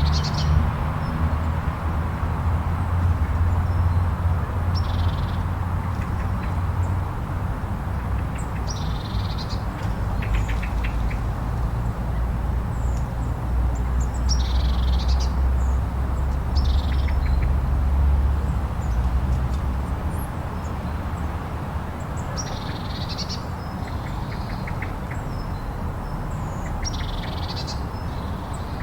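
Blizzard wind blowing steadily with a deep rumble that eases about two-thirds of the way through. Short high bird calls come every few seconds over it, with a few quick chattering trills.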